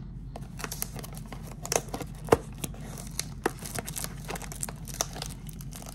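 Wrapping on a box of baseball cards crinkling and tearing as it is opened by hand: a string of crackles and small snaps, with a sharper snap a little past two seconds in.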